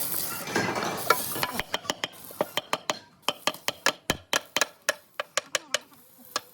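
About a second and a half of scraping noise, then a quick, slightly irregular run of sharp taps, about four a second: hand tools knocking on metal during a truck gearbox repair.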